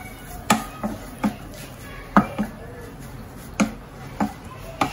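Wooden spatula knocking and scraping against a non-stick frying pan while grated carrot and sliced green chillies are stir-fried. There are about eight irregular sharp taps, spaced half a second to a second apart.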